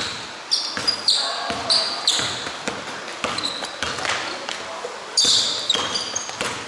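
Basketball bouncing irregularly on an indoor court, mixed with frequent short, high sneaker squeaks on the gym floor and players' voices.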